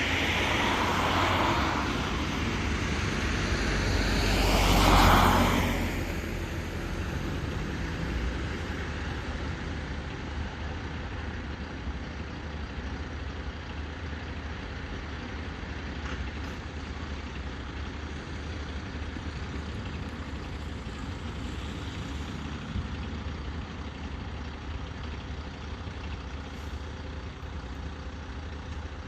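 Fire engine's heavy diesel engine running steadily, with a louder rush of noise that swells and fades about four to six seconds in.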